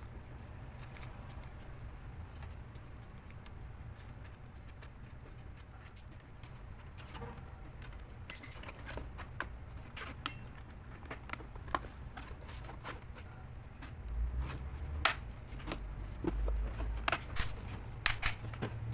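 Scattered sharp clicks and taps of small hard parts being handled, over a low steady hum; the clicks start about seven seconds in, with a few heavier thumps near the end.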